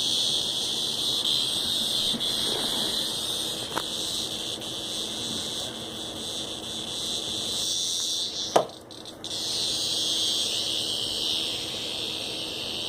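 Cicada's distress buzz, a steady high-pitched rasp from an insect caught by a cat. It cuts out with a sharp click about eight and a half seconds in and starts again less than a second later.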